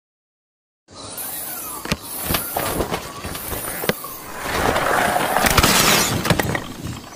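About a second of dead silence, then glass shattering sound effects: sharp cracking impacts a few times, and a louder crunching, hissing stretch about four to six seconds in, as animated glass panes smash down onto soft balls.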